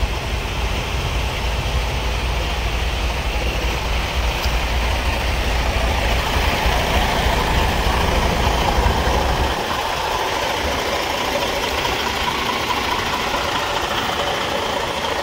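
Freightliner semi-truck's diesel engine running close by with a steady low rumble that drops away about nine or ten seconds in.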